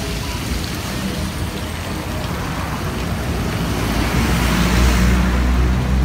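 Fountain water splashing steadily into its stone basin, with street traffic; a vehicle's low engine rumble swells about four seconds in.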